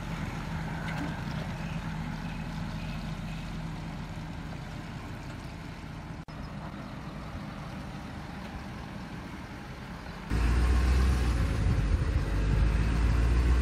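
Full-size 4x4 pickup truck engine running at low speed as the truck manoeuvres. About ten seconds in the sound jumps to a louder, deeper engine sound close beside the truck's rear hitch.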